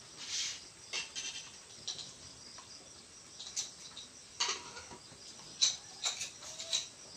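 Light handling sounds of a small plastic measuring spoon: a few soft clicks and rustles as soda is scooped and tipped onto flour in a bowl.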